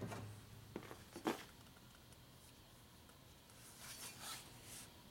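Faint handling noises at a workbench: two light knocks about a second in, then soft scraping and rustling near four seconds in, as Ironhead Sportster cylinder heads are moved and picked up.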